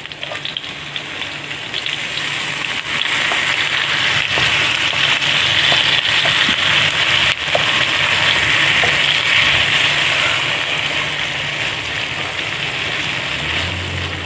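Keema mince sizzling in hot oil in a wok around stuffed bell peppers as it is tipped in and stirred with a wooden spatula. The sizzle builds over the first few seconds and eases off toward the end.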